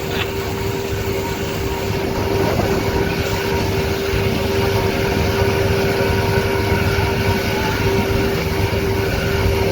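Motorboat engine running steadily at speed, one constant drone over rumbling wind and water noise on the microphone.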